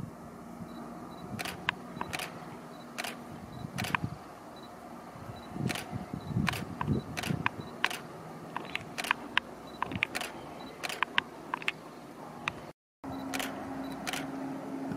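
Many sharp, irregular clicks close to the microphone over a faint steady hum from a diesel train running on the line below. The sound breaks off briefly near the end, and after the break the hum is steadier and plainer.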